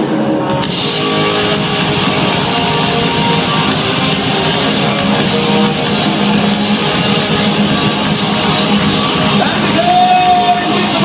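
Live rock band playing loud, with drums and shouted singing. The sound grows fuller about half a second in.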